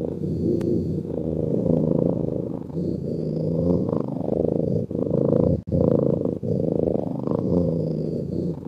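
Cat snoring: a continuous low rumble that swells and eases with each breath, breaking off briefly about five and a half seconds in.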